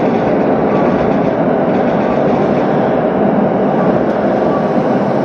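Steady running noise of an electric commuter train, heard from inside the carriage as it runs in along a station platform.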